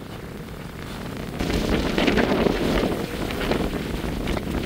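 Wind buffeting the microphone over water rushing and splashing along the hull of a sailing yacht under way. It gets louder about a second and a half in.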